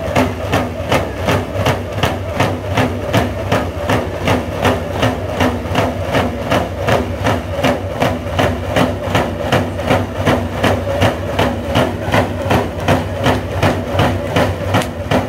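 A group of Dene hand-game drummers beating hide frame drums together in a fast, steady, even beat, the drumming that accompanies the hiding team during play.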